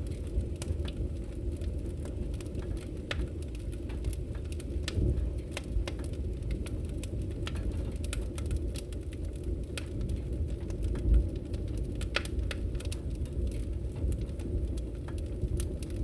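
Campfire burning: a steady low rush of flames with scattered sharp crackles and pops from the burning wood, and one louder low thump about two-thirds of the way through.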